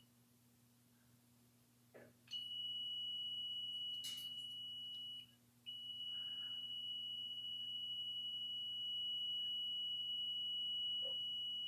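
Continuity tester giving a steady high beep that cuts out briefly about three seconds after it starts, then resumes and holds. The dropout marks an intermittent connection at a joint in the jukebox's door-panel power wiring. A few faint clicks come from handling the wires and probes.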